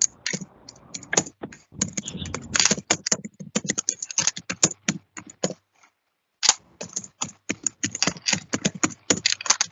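Typing on a computer keyboard: quick, irregular key clicks with a pause of under a second about halfway through.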